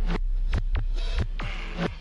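Background electronic music in a sparse passage: a deep steady bass under repeated falling swoops, about four a second.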